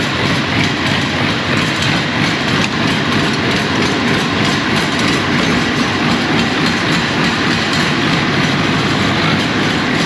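Massey Ferguson tractor's diesel engine running steadily and loud, a continuous clattering drone.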